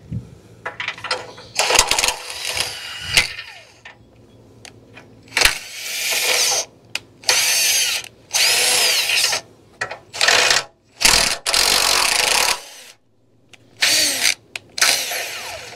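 Cordless drill spinning a thread chaser over threaded studs on a car frame to clean the threads. It runs in a series of short bursts, the motor speeding up and slowing within each one.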